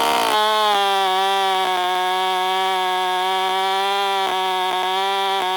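A steady, sustained electronic drone held at one pitch with many overtones, like a synthesizer note in background music. It settles in within the first half second as the chainsaw noise cuts away, with a few faint clicks over it.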